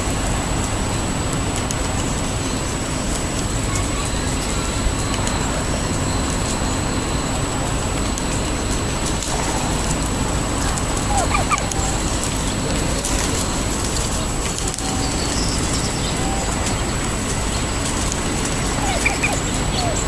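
Wild turkeys feeding, giving a few soft short calls, over a steady low background noise.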